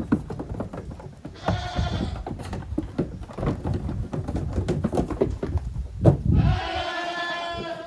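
Young goats bleating twice, a short bleat about a second and a half in and a longer one near the end, over a steady clatter of hooves knocking as they play.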